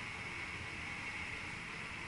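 Steady running noise inside the driver's cab of a VIRM double-deck electric train: a low rumble under an even hiss.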